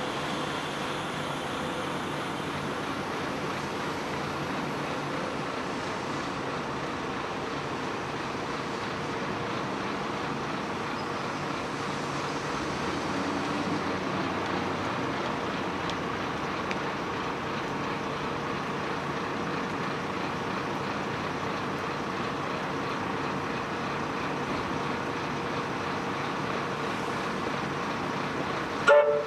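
Bombardier M5000 tram slowing in and standing at a tram stop platform, a steady hum from its onboard equipment over city traffic noise. A short loud knock comes just before the end.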